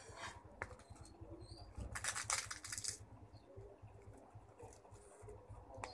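Chopsticks handling crisp roasted seaweed sheets and rice in a plastic tub, with light clicks and a short, loud crisp rustle about two seconds in.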